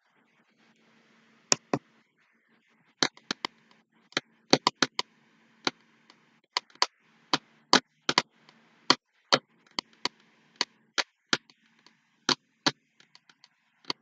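A series of sharp, irregular clicks, some in quick pairs and clusters, over a faint steady low hum.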